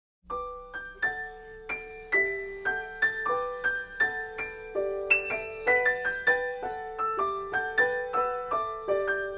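Background piano music: a melody of single struck notes, about two to three a second, each ringing and fading before the next.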